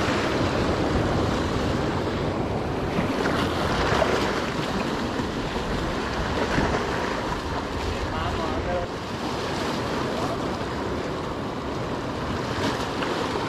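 Ocean waves and surf washing in steadily, with wind buffeting the microphone.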